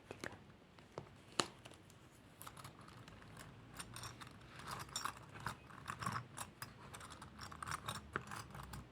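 Jewellery handled close to the microphone: small metallic clicks and clinks, a few scattered ones at first, then a quick, dense run of clinking from about two and a half seconds in.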